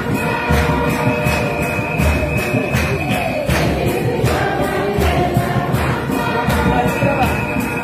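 Choir singing a lively hymn, with a drum beating about twice a second and rhythmic hand claps.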